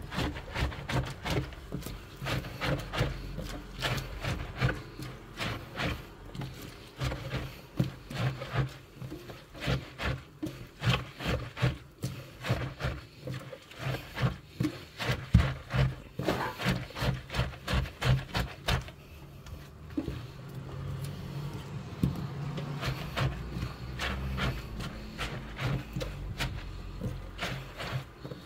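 Hands squeezing and kneading salted, shredded wild garlic (ramsons) shoots in a stainless steel sink: repeated wet, rustling squeezes, about two or three a second, evening out near the end. The salting and squeezing draws out the leaves' pungency and bitterness before fermenting.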